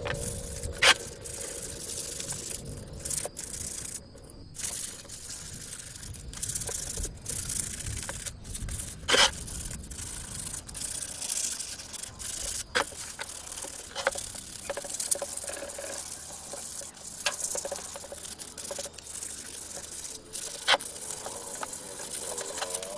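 Sandpaper rubbed by hand over the bare cast-aluminium CVT cover of a Yamaha Mio Sporty scooter to polish it: a scratchy rubbing in uneven back-and-forth strokes, with a few sharp clicks.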